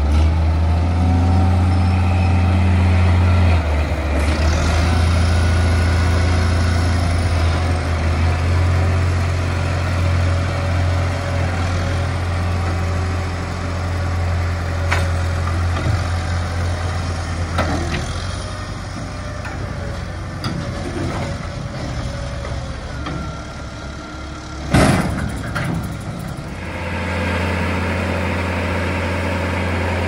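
Farm tractor's diesel engine running as it reverses and tips a trailer load of silage, with one sharp loud bang about 25 seconds in. Near the end a steady, heavier engine hum from a Clark Michigan 35B wheel loader working the silage pit.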